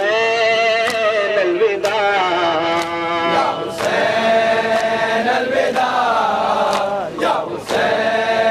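Male voices chanting a nauha, a Shia lament, in unison, the lead reciter amplified through a loudspeaker, over sharp slaps about once a second: chest-beating (matam) in time with the chant.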